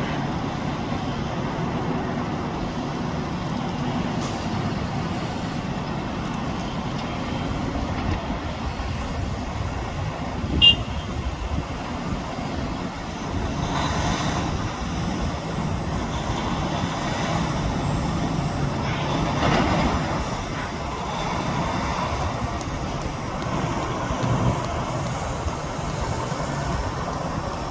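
Heavy construction machinery running, a steady low diesel-engine rumble that swells a couple of times, with one short, sharp high-pitched squeal or clank about ten seconds in.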